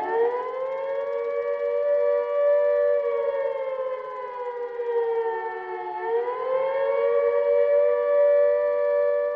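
Civil-defence air-raid siren sounding the attack warning: one wailing tone that rises, holds, slowly falls and rises again about six seconds in.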